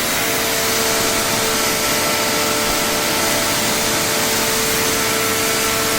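Ibell Wind55 electric car pressure washer running steadily, its motor holding one constant pitch under a loud, even hiss of spraying water as it rinses off shampoo foam.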